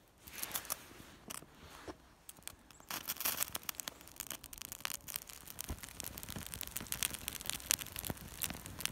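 White birch bark catching fire and crackling: a few sharp snaps at first, then from about three seconds in a dense, steady crackle as the flames take hold.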